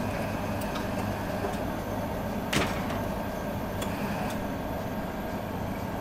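Vending machine sound effects: a steady machine hum with scattered light clicks, and one sharper clack about two and a half seconds in as a can is dispensed.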